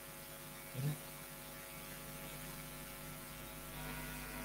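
Steady electrical mains hum made of several held tones, with a brief low sound about a second in and a faint hiss creeping up near the end.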